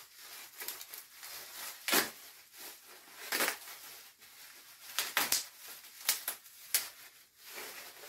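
Plastic packaging crinkling and rustling as it is handled and pulled off a machete, with several sharp crackles of the wrap along the way.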